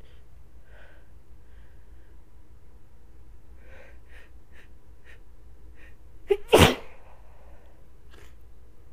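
A congested woman's sneeze buildup: faint sniffles and shaky breaths, then a sharp catch of breath and one loud sneeze about six and a half seconds in, followed by a faint sniff.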